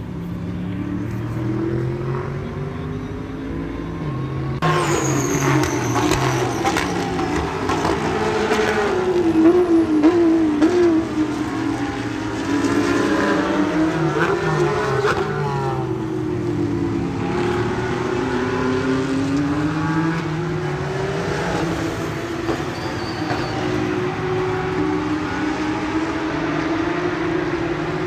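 Race car engines running at speed, their pitch rising and falling as several cars pass one after another. It gets louder about four and a half seconds in.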